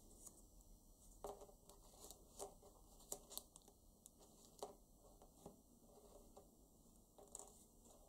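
Faint crinkling and ticking of a folded paper banknote being pinched and shaped between the fingers, a dozen or so short, sharp crackles at uneven intervals.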